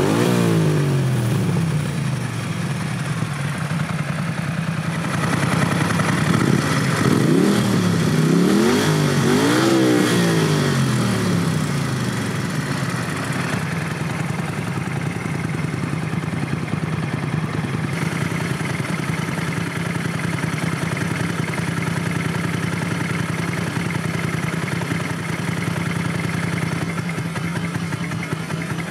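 Moto Guzzi Norge 1200 GT 8V's 1151 cc V-twin running: the revs fall back at the start and the throttle is blipped twice, then the engine settles into a steady idle from about twelve seconds in.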